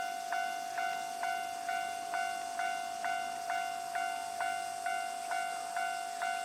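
Japanese railway level-crossing warning bell ringing steadily, about two strikes a second, each strike sharp at the start and fading into the next.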